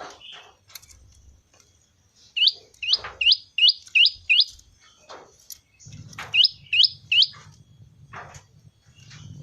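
Prenjak lumut singing its 'ceng-ceng' call: a quick run of six sharp rising notes, then three more a couple of seconds later, with scattered short clicks between.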